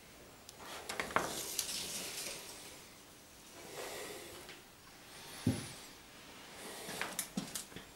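Footsteps scuffing and rustling, with scattered sharp clicks about a second in and again near the end, and a single dull thump about five and a half seconds in.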